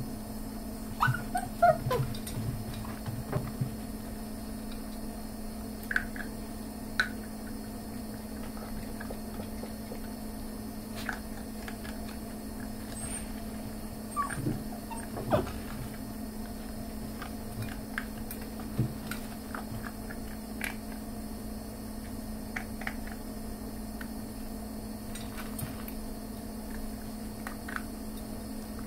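Dachshund puppies eating dry kibble: scattered crunches, clicks and knocks at the bowls, with a few short puppy whimpers in the first couple of seconds and again around the middle. A steady low hum runs underneath.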